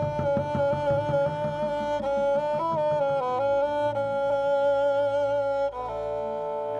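Kobyz ensemble playing a bowed-string melody in long held notes, with a slide in pitch in the middle and a shift to a new set of notes about a second before the end.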